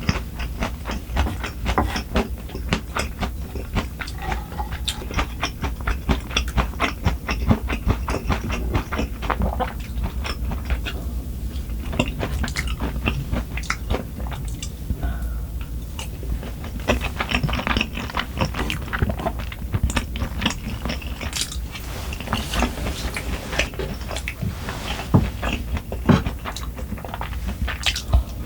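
Close-miked eating sounds: chewing and crunching food, with many quick mouth clicks, over a constant low hum.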